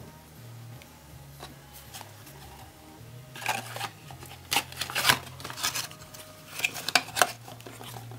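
Plastic HP 940 ink cartridge handled against a cardboard box: a run of sharp clicks, knocks and rustles starting about three seconds in, over quiet background music.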